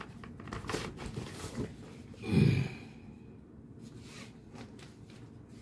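Light rustling and clicking from handling a leather sling bag and its strap, with one short vocal sound from the man about two and a half seconds in, the loudest thing heard.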